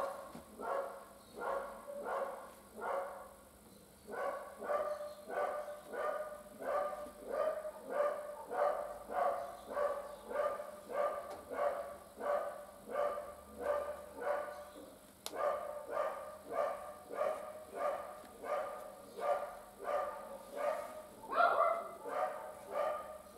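A dog barking over and over at a steady pace, about one and a half barks a second, with short pauses and a louder burst of barks near the end.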